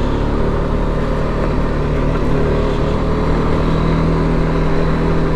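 BMW G310GS's single-cylinder engine running at a steady cruise, holding an even note, over a steady haze of tyre and wind noise on a gravel road.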